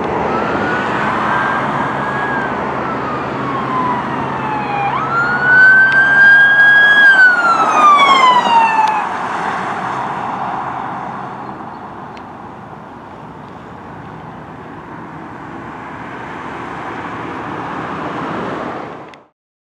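Electronic siren on a fire department command SUV sounding a wail, its pitch rising and falling slowly over several seconds. It is loudest about five to nine seconds in as the vehicle passes, then gives way to steady traffic noise.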